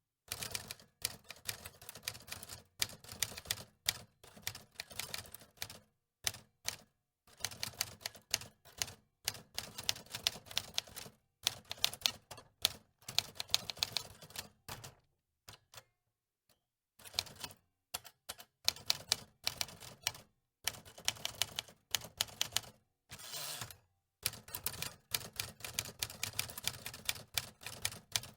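Typewriter keys clacking in quick runs of strokes separated by brief pauses, with a break of over a second about halfway through.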